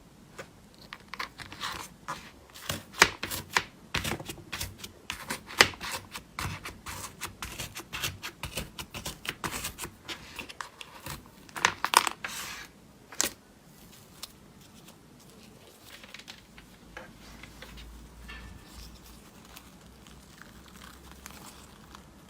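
Slime being squeezed and stretched by hand, giving rapid crackling pops and clicks. The pops are dense for the first half and thin out to faint scattered crackles in the second half.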